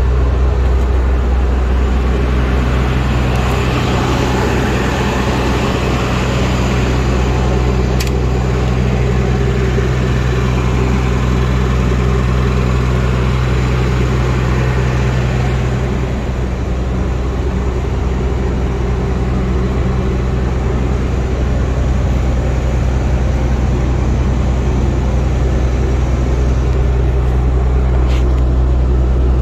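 Fire pumper's Cummins diesel engine idling steadily with a low hum, and one sharp click about eight seconds in.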